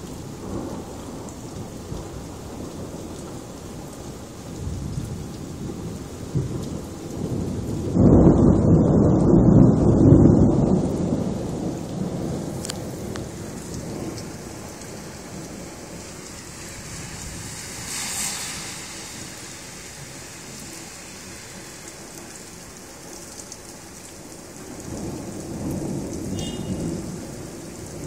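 Rain falling steadily in a thunderstorm, with a loud low rumble of thunder breaking suddenly about eight seconds in and fading over several seconds, and a softer rumble near the end.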